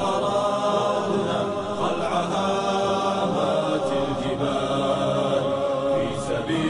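Chanted male vocals of an Islamic nasheed, sung without instruments in drawn-out, melismatic lines, with a long held note near the end.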